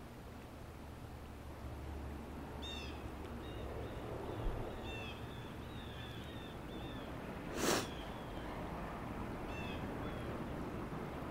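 North American river otters chirping: about a dozen short, high calls, some in quick pairs, scattered over a steady low rumble. A brief rush of noise cuts in about two-thirds of the way through.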